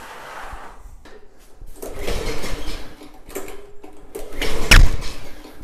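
Tecumseh VLV55 engine on a walk-behind mower being cranked with the pull cord, rattling over without catching, with the loudest pull a little before five seconds. The engine will not start; the owner doesn't hear the primer pushing any fuel.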